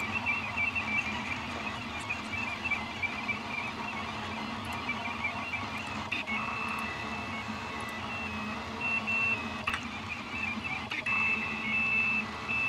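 Orion Delta 3D printer running a print: its stepper motors sing in short high tones that keep stepping in pitch as the delta arms move, over a steady fan hiss, with a few faint clicks.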